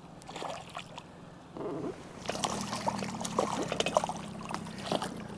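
Water splashing and trickling, with a run of small irregular splashes and clicks starting about two seconds in.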